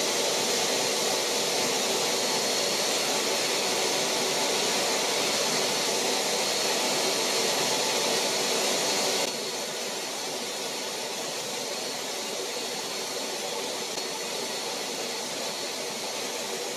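Hoover Dual Spin Pet carpet cleaner's suction motor running steadily, a whirring hiss, while its handheld stain tool is worked back and forth over the carpet. The sound drops slightly and turns duller about nine seconds in.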